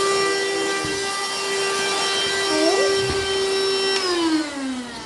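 Small handheld vacuum cleaner motor running with a steady whine, switched off about four seconds in and winding down with a falling pitch.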